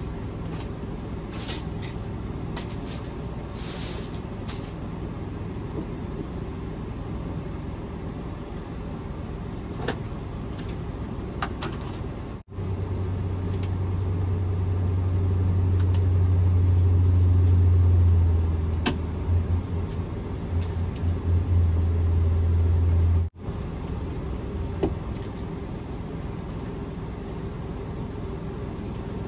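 A plastic grocery bag rustling during the first few seconds, over a steady low rumble. For about ten seconds in the middle a much louder low hum comes in, swells, wavers briefly and then stops abruptly.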